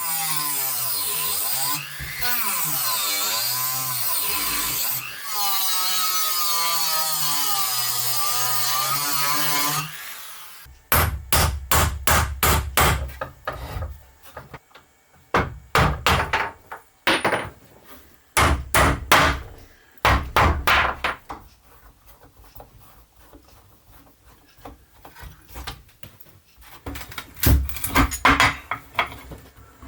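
A power tool working wood runs for about ten seconds, its pitch wavering up and down as the load changes, then stops. After it come many short rubbing or knocking strokes on wood in groups, with a quieter pause between them.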